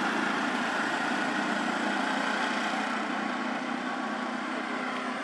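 A steady hum, like an engine running, with a high hiss over it. It has no distinct knocks or calls and fades slightly toward the end.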